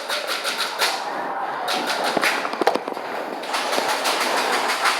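Airsoft gunfire: an irregular run of sharp pops and clicks, several a second.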